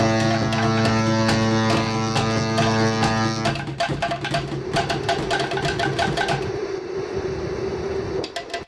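The cruise ship Westerdam's horn sounding one long, steady, low blast for about three and a half seconds, stopping abruptly. Background music with a steady percussion beat plays throughout.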